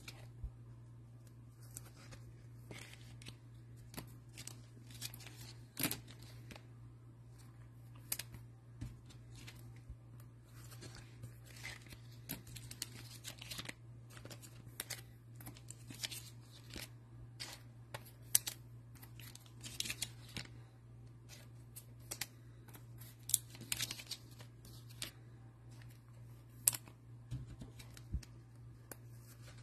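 Faint, scattered rustling, crinkling and clicking of trading cards and their plastic holders and packaging being handled at a table, over a steady low hum.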